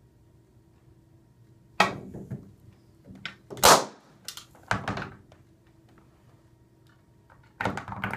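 Billiard balls knocking against rails, a ramp and a box in a series of sharp clacks, with one louder sharp pop about three and a half seconds in, a balloon bursting, and a quick cluster of knocks near the end as the balls drop into the carom box.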